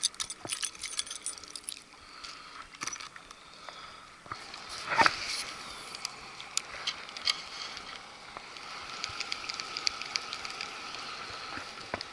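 Spinning reel and rod being handled: scattered clicks, one louder swish about five seconds in, then a run of rapid ticking from the reel as line is wound in.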